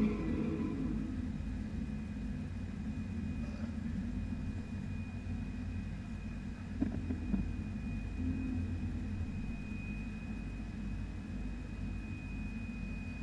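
Race car engine idling, a low steady rumble heard from inside the cabin, with a faint steady high whine over it.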